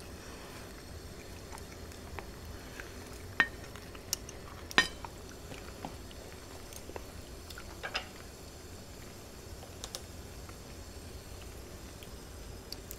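Metal tongs and chopsticks clinking against a small serving bowl and a hot-pot rim, a few sharp scattered clicks, the loudest a little over three seconds in and just before five seconds in. Under them is a steady low hiss from the simmering hot pot.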